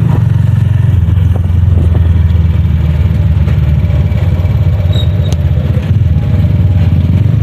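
Tricycle's motorcycle engine running steadily under way, heard from inside the passenger sidecar as a loud, even low drone.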